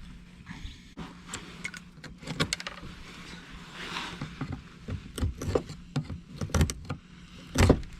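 Irregular clicks, knocks and rattles of hands and tools working at plugs that won't come out easily, with the loudest knock near the end.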